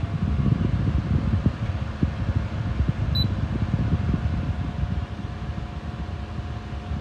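Small portable personal air cooler fan running, its airflow buffeting the microphone as a fluttering low rumble under a faint steady hum. A short high blip sounds about three seconds in.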